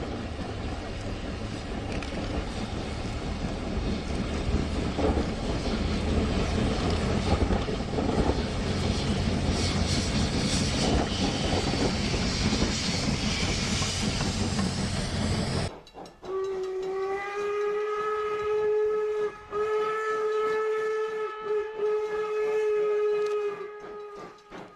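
A snowplow train working through deep snow, heard as a loud, steady rush of noise. This cuts off abruptly about two-thirds of the way in. A long, steady blast of a train whistle follows and lasts several seconds.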